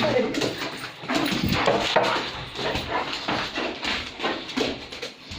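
Pit bull whining and whimpering in short, repeated cries, with a few sharp yips.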